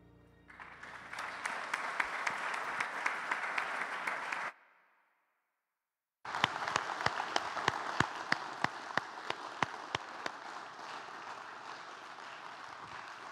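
Congregation applauding, with a few sharp nearby claps standing out. The applause cuts out abruptly partway through, leaving a gap of under two seconds, then resumes suddenly and slowly thins out.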